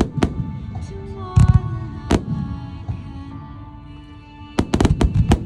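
Aerial firework shells bursting in sharp bangs: single reports in the first couple of seconds, then a rapid run of several bangs near the end. Music with sustained tones plays underneath.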